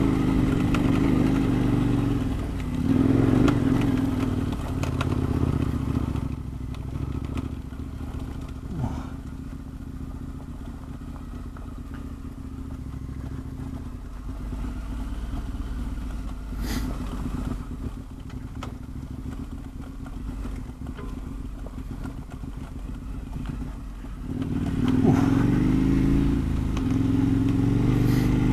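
KTM 1090 Adventure R's V-twin engine running under way on a stony dirt track, with clatter from the rough surface. The engine pulls hard for the first several seconds, runs lower and quieter through most of the stretch, then opens up again near the end.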